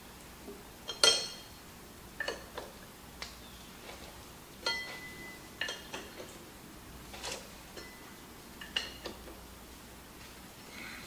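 Wrench clinking against the metal hydraulic hose fittings on a skid-steer lift cylinder as they are tightened: about ten separate metallic clinks, some with a short ring, the loudest about a second in.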